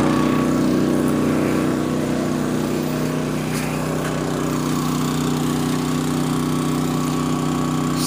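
Champion 2800-watt inverter generator running at a steady speed under the load of an RV's 15,000 BTU air conditioner, with economy mode off. It makes a constant engine drone with an unchanging pitch, fading slightly over the first few seconds.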